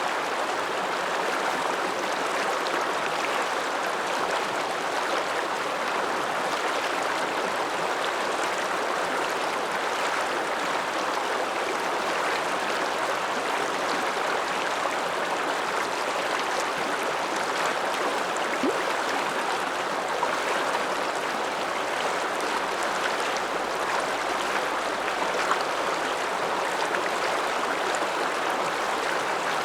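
The Ramsauer Ache, an Alpine mountain river, rushing steadily.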